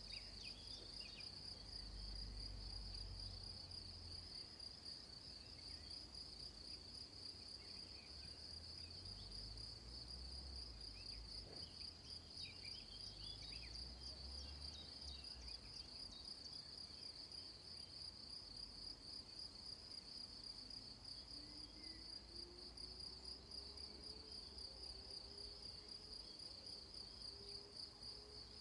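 Crickets chirping in a steady, fast-pulsing high trill, with faint short chirps and a low rumble underneath.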